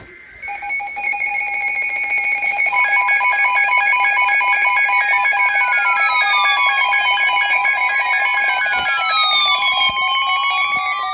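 Weather radio alert alarms sounding together, set off by a new warning broadcast: several steady and beeping tones stack up in the first few seconds, and repeated falling siren-like sweeps join them from about four seconds in.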